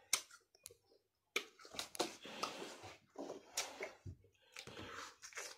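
Quiet, scattered wet clicks and short hissy mouth noises of a boy chewing and sucking on a lemon slice.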